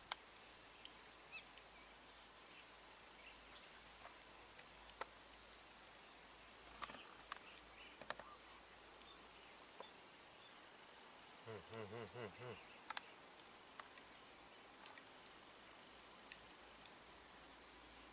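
Steady high-pitched chorus of swamp insects, a continuous shrill drone with no breaks, with a few faint clicks scattered through it.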